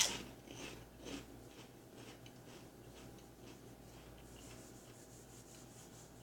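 Pringles potato crisps being bitten and chewed: a sharp crunch at the start, two softer crunches within the first second or so, then faint scattered ticks.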